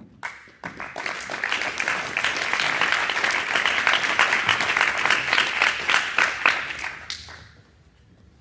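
Audience applauding: it starts right away, builds over the first second, stays full for several seconds and dies away about seven and a half seconds in.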